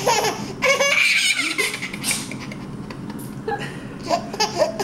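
Young child laughing with glee in two bursts, one over the first two seconds and another from about three and a half seconds in. The laughter is the child's delight at a cough or sneeze.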